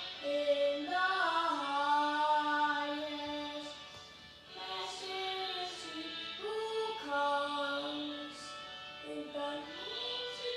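A single voice singing a slow hymn with long held notes and gliding pitch, pausing briefly midway.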